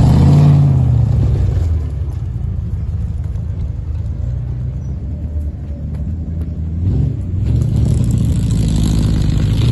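Land Rover trials vehicle's engine revving hard as it climbs a steep muddy bank; the revs rise in the first second, ease off to a steadier, quieter pull through the middle, then climb again from about seven seconds in.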